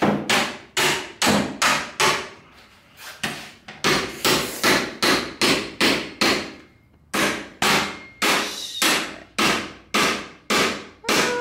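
Claw hammer striking a small locked metal safe over and over, about two to three blows a second, with two short breaks (a little over two seconds in and just before seven seconds in), as it is battered to break it open.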